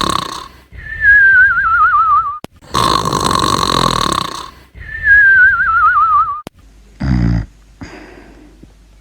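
Cartoon snoring sound effect: a loud snore on the in-breath, then a falling, warbling whistle on the out-breath, heard twice. A short, low snort follows about seven seconds in.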